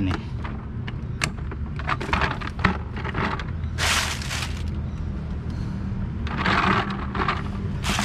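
The empty black plastic tank of a Bosch GAS 15 wet/dry vacuum cleaner being handled and turned over: scattered sharp clicks and knocks of hard plastic, with two longer scraping noises about four and six and a half seconds in. A steady low hum runs underneath.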